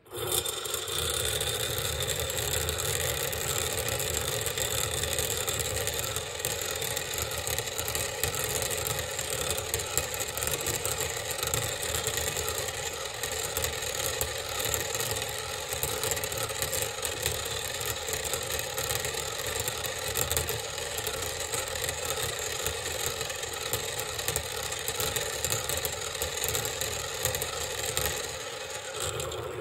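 Motorised vortex base running under a glass cylinder of water, spinning a steel ball at its bottom to whirl the water into a vortex: a steady mechanical whir that starts abruptly and cuts off near the end.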